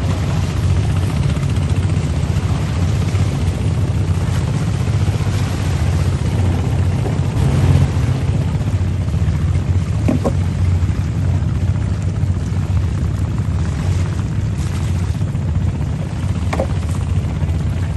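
Engine of a large wooden fishing boat running under way, a steady low drone with no change in speed.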